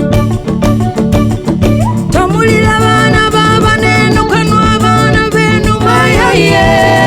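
Band music with a repeating bass line and steady beat. About two seconds in, a voice comes in singing long held notes, each sliding up at its start.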